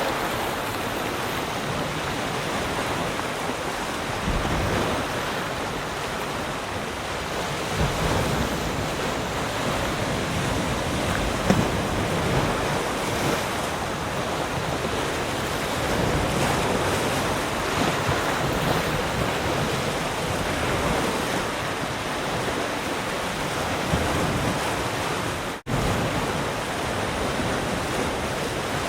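Sea surf: waves breaking and washing ashore in a steady rush that swells a little now and then, with the sound cutting out for an instant a little before the end.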